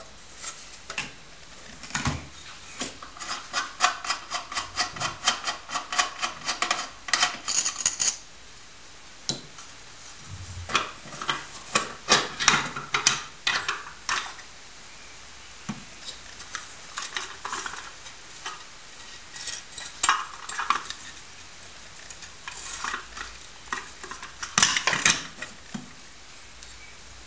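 Metal parts of a JD-4 oil diffusion pump being handled: the jet stack clinking, knocking and scraping against the metal pump housing. About two seconds in comes a fast run of rattling clinks with a ringing tone, followed by scattered knocks and scrapes and a louder cluster of clanks near the end.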